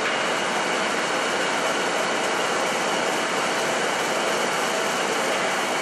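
WSM-1300 film slitting machine running at speed: a steady, even whir of spinning rollers and moving plastic film web.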